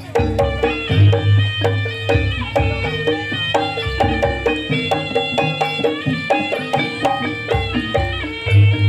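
Javanese jaranan accompaniment music: an ensemble of struck pitched gongs and metallophones with drums, playing a fast repeating pattern over a steady beat.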